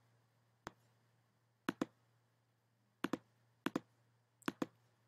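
Faint clicks of a computer mouse button: one single click, then four quick double clicks about a second apart.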